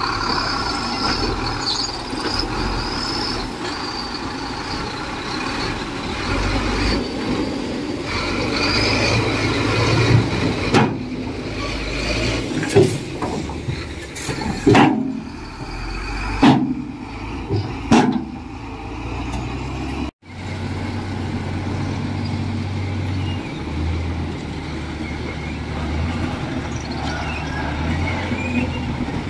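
Diesel engines of a bulldozer and dump trucks running steadily on earthmoving work. Through the middle come about five loud sharp bangs roughly two seconds apart. After the sound cuts out for an instant, a steady low engine drone follows.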